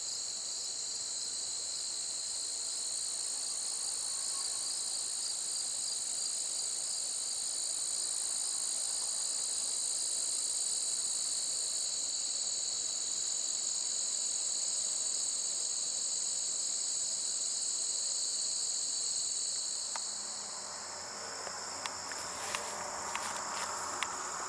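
Steady, shrill late-summer chorus of singing insects, a high continuous trill. About twenty seconds in the chorus fades and scattered clicks and rustling take over.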